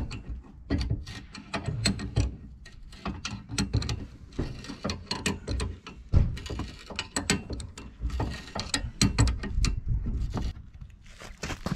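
Ratchet wrench clicking in quick, irregular runs with occasional metal knocks as it turns the bolt on a car's tow-ball mount.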